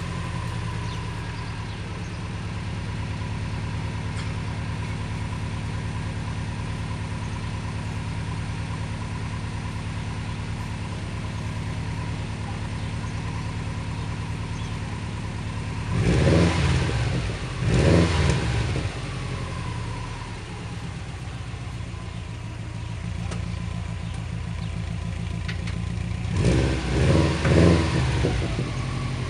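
Turbocharged car engine idling through its exhaust, a stock downpipe into an aftermarket cat-back. It is revved in two quick blips about halfway through, and in several quick blips in a row near the end.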